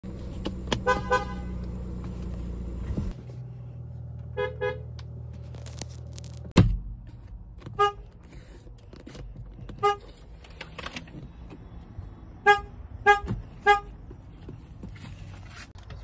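BMW car horns tooted in short taps, several separate presses: two quick double toots, then five single short toots. A low steady hum sits under the first few seconds, and a sharp thump about six and a half seconds in is the loudest sound.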